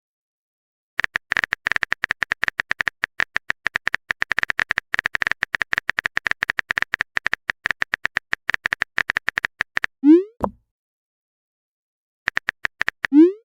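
Chat-app typing sound effect: rapid keyboard clicks for about nine seconds, then a quick rising pop like a message being sent. A few more typing clicks and a second rising pop come near the end.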